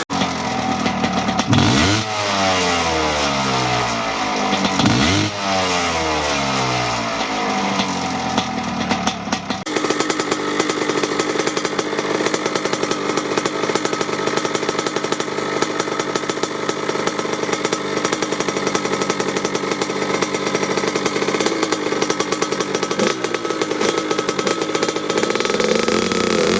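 Kawasaki KX80 80cc two-stroke dirt bike engine with a Dep S2 silencer, revved up sharply twice with the pitch falling back each time, then running steadily. Near the end the revs start to climb again.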